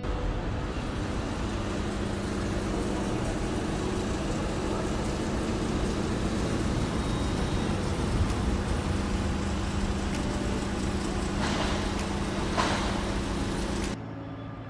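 Steady mechanical hum and rushing noise on the open deck of a berthed cruise ship, the Queen Mary 2, with two brief hissing swells about eleven and twelve seconds in. The sound drops quieter just before the end.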